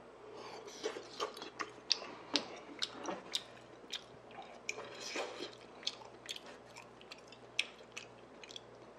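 A person chewing beef intestine hot pot, with wet mouth smacks and many short, sharp clicks.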